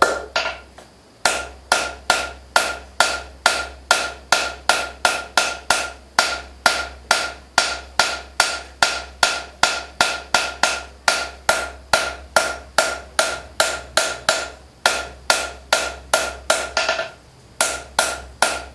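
Blacksmith's hammer striking hot steel on an anvil, forging a leather skive blade: steady blows about three a second, each with a bright metallic ring. There are short pauses about a second in and again near the end.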